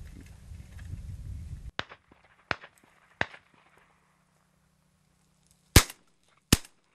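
A shotgun fires twice, about three-quarters of a second apart near the end; these are the loudest sounds. Before them come three fainter single gunshots a little under a second apart, and at the start a low rumbling noise that cuts off abruptly about two seconds in.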